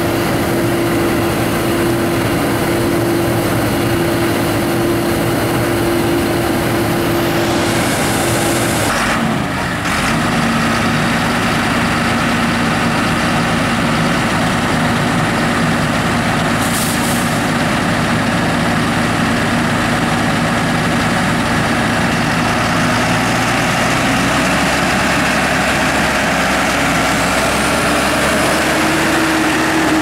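Heavy diesel engines of large farm machinery running steadily at close range. About nine seconds in the sound dips briefly and changes to a lower steady engine note, which climbs in pitch near the end as the tractor, a Fendt Vario pulling loaded grain trailers, comes close.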